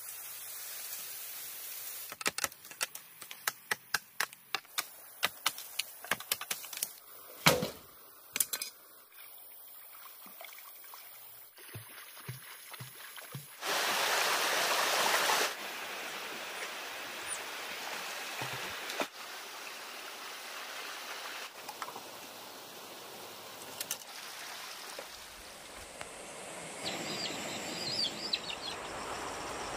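Running water, with a run of sharp knocks in the first few seconds and a louder rush lasting about two seconds midway.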